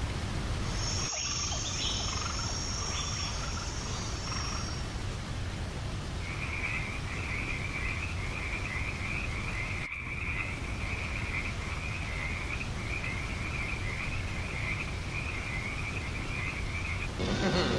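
Rainforest ambience: a steady hiss with frogs calling, a thin high tone in the first few seconds, then a rapid, even pulsing chirp from about six seconds in. A louder sound comes in just before the end.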